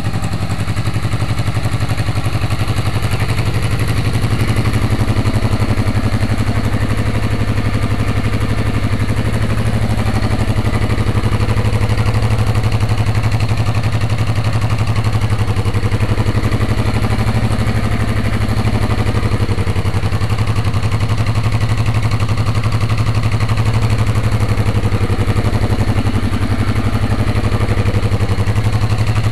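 1986 Honda Shadow VT500's V-twin engine idling steadily.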